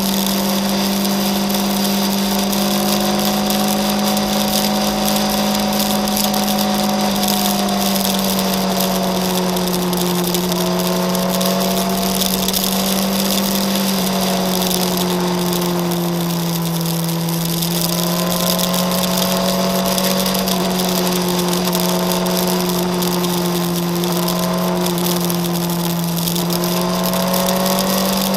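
Motorcycle engine running at a steady road cruise, its hum drifting gently up and down in pitch with the throttle, under a constant hiss of wind and road noise.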